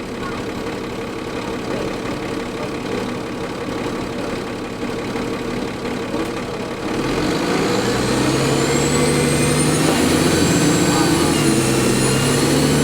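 Cummins ISL diesel engine of a 2004 New Flyer D40LF transit bus running steadily, then picking up about seven seconds in as the bus accelerates. A high turbo whine rises in pitch over the engine as it does.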